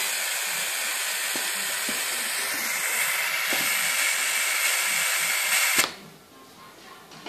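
Pneumatic venturi vacuum generator hissing steadily as compressed air rushes through it to hold suction on a vacuum cup, then cutting off suddenly near the end.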